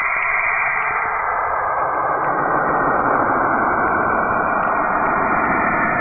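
Sonified radio emissions from Saturn, the planet's radio signals converted into audio: a dense, steady hiss with faint tones running through it, which deepens and fills out about two seconds in.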